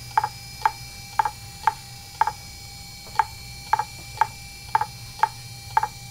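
Fujitsu MHK2048AT 2.5-inch laptop hard drive clicking about twice a second, unevenly, over a steady whine. It is a repeated head click typical of a failing drive.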